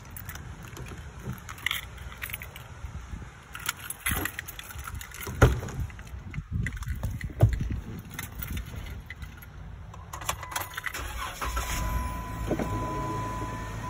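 Getting into a Jeep Wrangler Unlimited: keys jangling and the driver's door handled, with two sharp thumps a couple of seconds apart around the middle as the door is worked, then the engine starting and running near the end.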